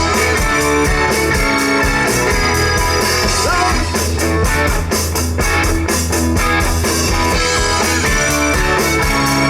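Rock band playing an instrumental stretch between sung lines: electric guitar, bass and drums, loud and steady.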